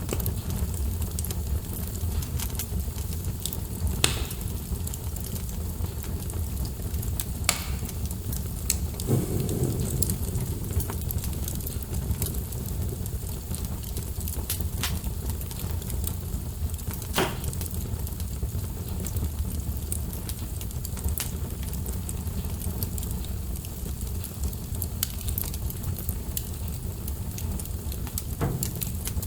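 Wood fire burning in a fireplace: a steady low rumble with irregular crackles and sharp pops from the burning logs, a few of them louder.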